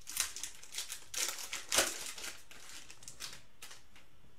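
Foil wrapper of a trading-card pack torn open and crinkled by hand: a run of crackling rustles, loudest a little under two seconds in, dying away near the end.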